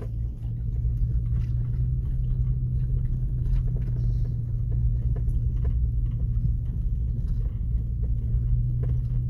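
Low steady rumble of a Nissan Xterra driving along a rutted dirt track, engine and tyre noise heard from inside the cab, with scattered faint knocks and rattles.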